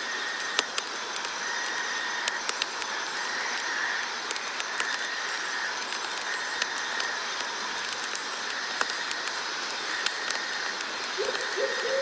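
Night-time outdoor ambience: a steady hiss under a high trilling chorus that comes and goes every second or two, with scattered sharp ticks. A short call rises near the end.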